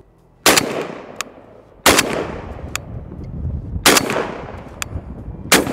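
Beretta A300 Ultima Patrol 12-gauge semi-auto shotgun firing four Winchester Ranger low-recoil slugs in steady succession, about one and a half to two seconds apart. Each report is followed by a long fading echo, and a fainter sharp crack comes between the shots.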